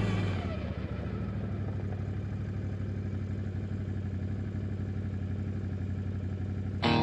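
ATV engine running steadily, with an even rapid pulse. Music fades out just after the start, and a guitar song comes in loudly near the end.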